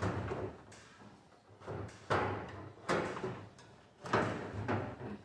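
Four short scraping knocks about a second apart, made by parts of a clothes dryer being shifted and bumped during repair.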